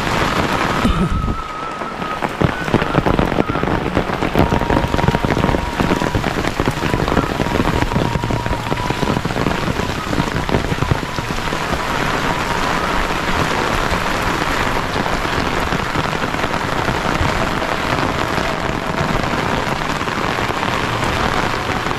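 Heavy rain falling steadily, a dense patter of countless drops. It is briefly softer about a second in.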